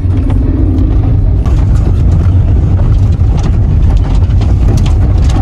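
Subaru Justy being driven over a rough dirt track, heard from inside the cabin: a steady deep drone of engine and tyres, with scattered knocks and rattles from the bumps.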